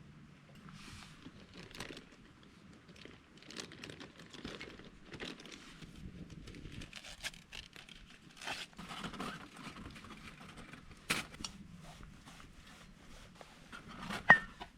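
Rustling and crinkling of plastic packaging and small clicks and knocks of camp gear being handled while breakfast is prepared, with one sharp knock near the end.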